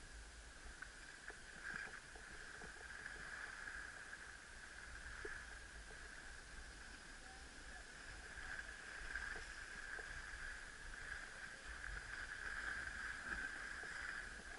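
Snowboard sliding over packed, grooved snow: a steady scraping hiss that gets a little louder over the second half.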